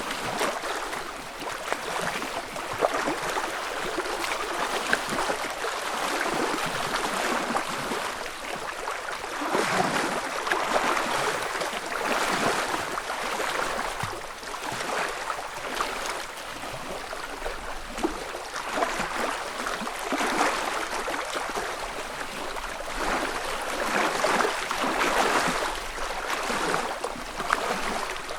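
Small waves lapping on a lake shore: soft splashing and gurgling at the water's edge, swelling and easing every few seconds.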